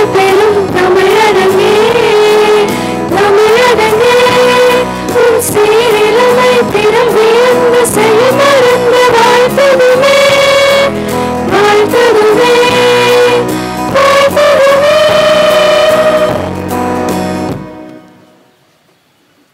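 A group of young women singing a Tamil song in unison with instrumental accompaniment, amplified over a loudspeaker; the song ends and fades out about 17 seconds in.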